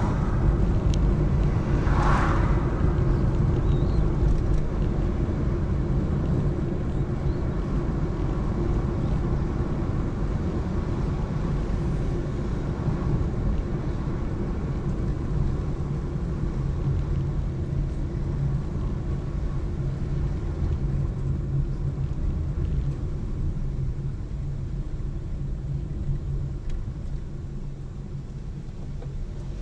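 A car driving: steady engine and tyre rumble, with a brief rush of noise about two seconds in, fading slowly toward the end.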